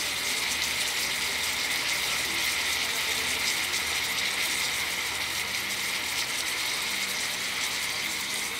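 Pork steak simmering in its marinade in a pan, the liquid bubbling and sizzling steadily.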